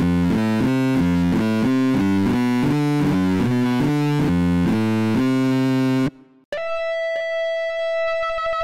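Synth lead presets from ROLI's Equator, played on a Seaboard Block. The Grizzly Formants Lead plays a quick figure of short low notes, about four a second, and stops about six seconds in. After a short gap, the Guitar Overdrive Lead sounds one long held note.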